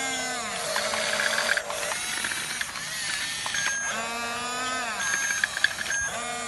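Electric motors of a radio-controlled model bulldozer whining in repeated bursts, each rising in pitch, holding, then falling, with clicking and rattling from the tracks and gears.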